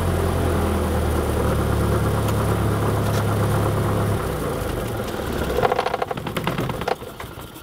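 Cessna 172's piston engine idling steadily, then cutting out a little over halfway through. A brief shuddering rattle follows as the engine and propeller run down, leaving a much quieter background: the engine being shut down after landing.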